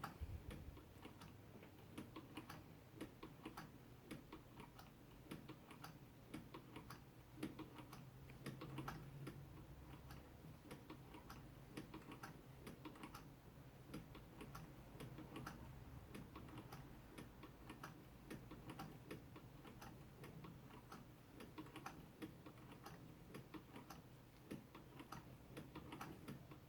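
A 1914 model 128 hand-crank sewing machine stitching, freshly oiled. It gives a continuous run of faint, light clicks, a few a second, as the crank turns and the needle goes up and down.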